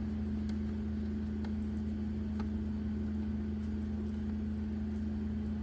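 A steady low hum, constant throughout, with a few faint light clicks.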